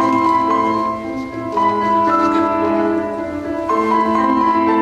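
Grand piano playing a slow passage, held notes ringing into one another with a new note or chord every second or so. A steady low hum runs underneath.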